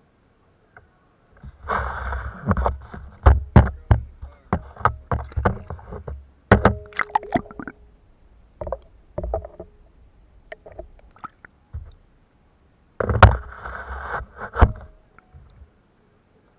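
Irregular sharp knocks and clatter on an 11-foot Emotion Angler Sport kayak, with two short noisy bursts, one about two seconds in and one near the end.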